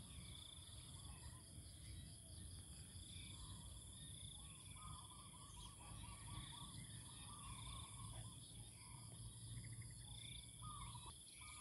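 Near silence: faint steady trilling of crickets, with a short run of soft repeated chirps about halfway through and again near the end.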